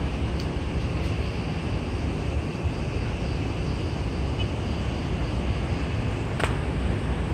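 Steady low rumble of wind buffeting the microphone on an open high-rise terrace, with one short sharp click about six and a half seconds in.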